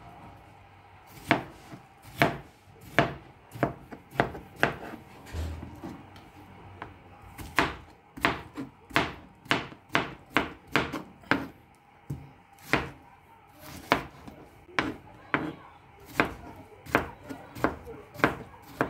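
Kitchen knife chopping watermelon into cubes on a cutting board: a series of sharp knocks of the blade hitting the board. The knocks come unevenly, pause briefly, then run in a quicker burst of about three a second in the middle before slowing again.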